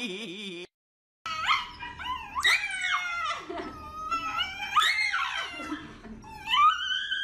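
A Shiba Inu screaming in protest while its paw is held: a string of loud, high-pitched cries that rise and fall, one after another. They start about a second in, after a brief cut.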